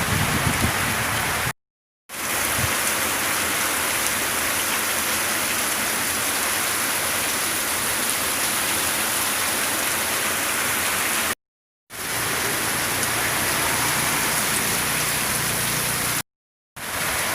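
Heavy rain pouring down steadily in wind. The sound is a constant even hiss, cut by three brief silent gaps: about two seconds in, at eleven and a half seconds, and near the end.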